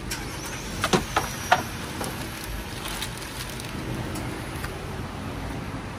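A few sharp clicks and knocks about a second in, from hand work at the car battery's terminal, over a steady background hiss.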